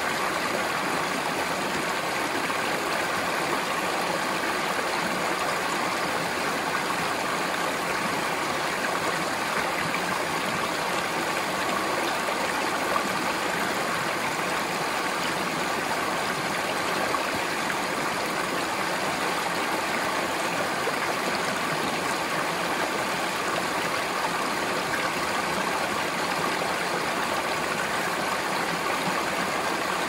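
Shallow rocky stream flowing over and around boulders: a steady rushing of water.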